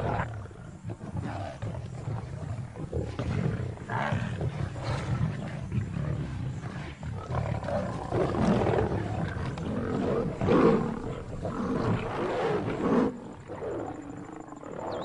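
Lions growling over a buffalo carcass as they feed, several animals overlapping, loudest in the second half.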